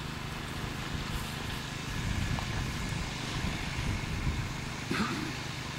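Steady low rumble and hum of outdoor background noise, with a brief voice near the end.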